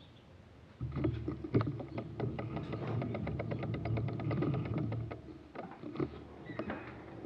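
Handling noise from a Garmin VIRB action camera being picked up and carried: low rubbing and rumbling on the camera body and mount, with knocks and a fast run of clicks, starting about a second in.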